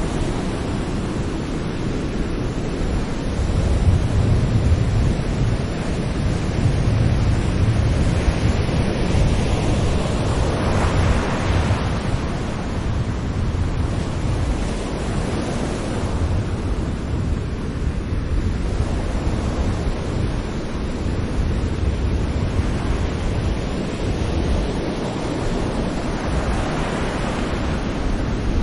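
Sea waves breaking gently on a shore: a continuous wash of surf with a heavy low rumble, swelling into a brighter rush of breaking water about eleven seconds in and again near the end.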